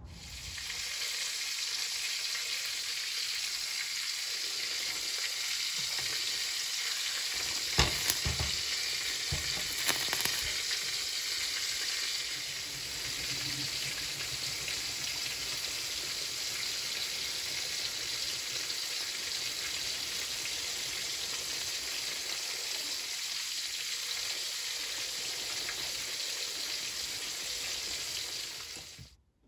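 Whole long eggplants charring directly over a gas stove burner: a steady sizzling hiss from the skins, with a few sharp pops about eight and ten seconds in, cutting off suddenly near the end.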